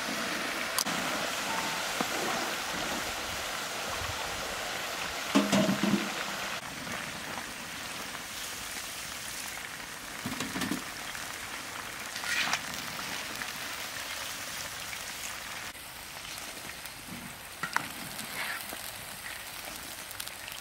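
Chicken drumsticks deep-frying in a large wok of hot oil: a steady sizzling hiss. A few knocks of the metal spatula against the wok come through, the loudest about five seconds in.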